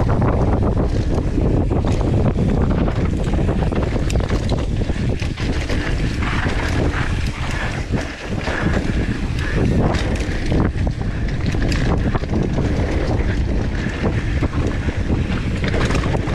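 Wind buffeting the action camera's microphone during a fast mountain bike descent on a dirt trail, a loud steady rumble, with scattered knocks and rattles from the bike and its tyres over bumps.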